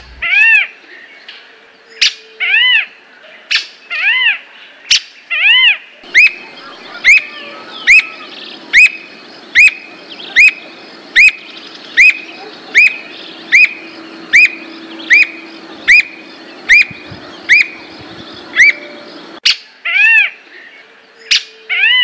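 Squirrel cuckoo calling, a series of short arched notes that rise and fall in pitch. At first fuller notes come about every second and a half; then a faster, even run of about sixteen single notes follows, a little over one a second, before the fuller notes return near the end.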